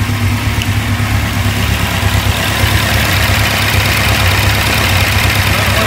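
Freshly built air-cooled Volkswagen Type 1 engine, a 2054 cc stroker with a 74 mm crank, running steadily just after its cam break-in, with the carburettor jetting not yet dialled in.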